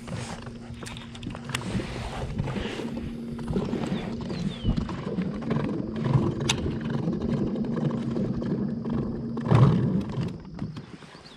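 Irregular rumbling wind and handling noise on the camera microphone, with a steady low hum underneath and scattered clicks. A louder thump comes about nine and a half seconds in.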